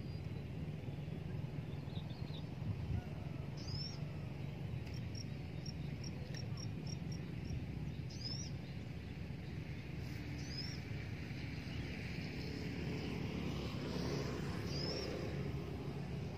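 Outdoor ambience of birds chirping: a few short, sharp high chirps and one quick run of about eight high notes, over a steady low rumble.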